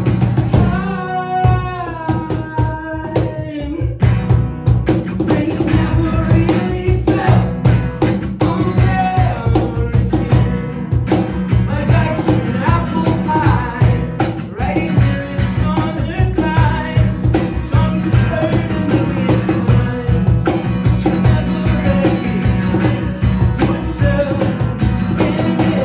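Acoustic guitar strummed fast and hard in a driving, rhythmic passage of a song, with a melody line stepping down in pitch a second or so in.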